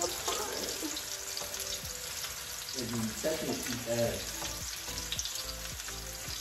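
Ricotta meatballs sizzling as they brown in hot oil in a frying pan, a steady crackling hiss.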